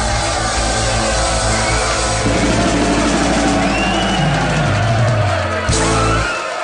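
Rock-style background music with drums and sustained bass notes, ending in a falling bass run that stops abruptly shortly before the end, leaving crowd noise.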